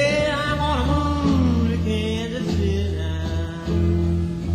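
1960s psychedelic rock band playing: steady low bass notes under a lead line that slides up and bends at the start.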